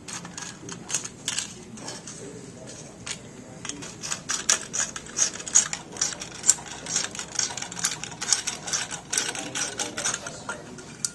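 Screws being tightened down with a screwdriver on a metal transducer mounting bracket: a run of irregular sharp metallic clicks and taps, busiest in the middle.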